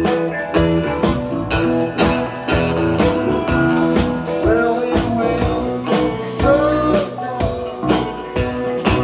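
A rock band playing a blues number: a steady drum beat with bass and electric guitar, and a few notes that bend in pitch.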